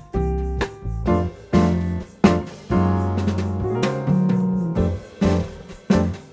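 Background music: a relaxed jazzy tune with piano or electric piano chords over a bass line and light drums.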